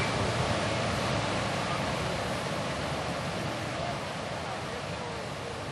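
River water rushing steadily, slowly fading out toward the end.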